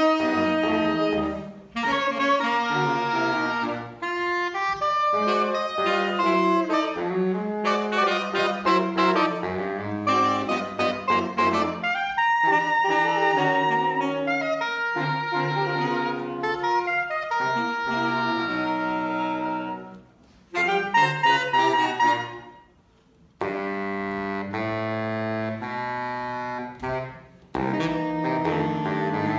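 Saxophone quartet playing in four-part harmony, moving between held chords and short punchy notes, with two brief breaks about two-thirds of the way through.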